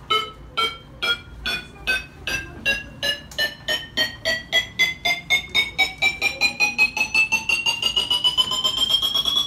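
Electronic sound-effect beeps for the play's machine running. They speed up from about three a second and rise steadily in pitch, running together into one continuous rising tone near the end.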